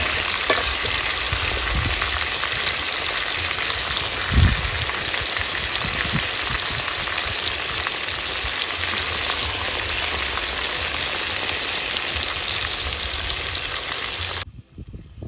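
Chicken pieces frying in oil in an aluminium pot: a steady sizzle that cuts off suddenly near the end, with a brief low thump about four seconds in.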